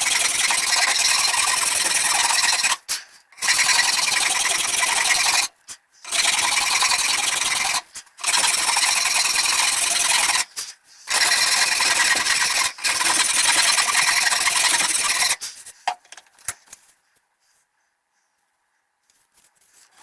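Steady abrasive rasping on wood as the new oak handle scales are shaped. It comes in stretches of two to three seconds with short breaks between them and stops about three-quarters of the way through.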